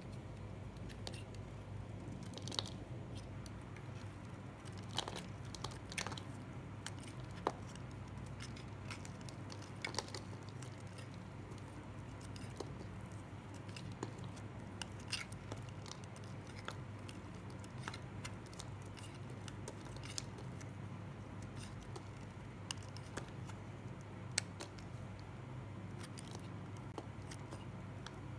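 Blade cutting through dry, crunchy soap: small crisp cracks and crunches at irregular intervals, over a steady low hum.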